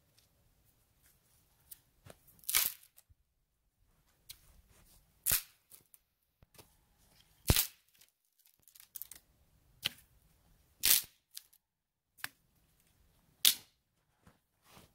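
A series of short, sharp crunches and snaps, about a dozen, coming irregularly every one to three seconds with quiet in between.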